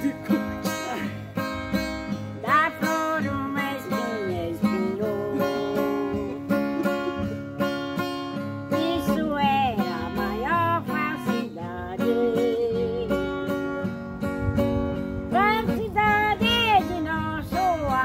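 Acoustic guitar strummed in accompaniment while an elderly woman sings a slow folk song, her sung lines wavering in pitch.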